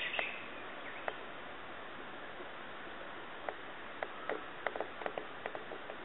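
Scattered light ticks and scrapes of a kitten's paws and claws on rough asphalt, thickest in the second half, over a steady background hiss.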